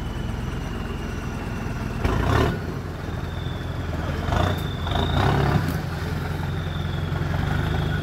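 Off-road 4x4 engine running at low revs, rising in louder surges about two seconds in and again from about four to five and a half seconds.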